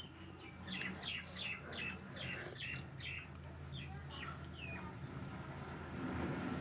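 A bird chirping in a quick run of short falling notes, about three a second, thinning out near the end, over a steady low hum.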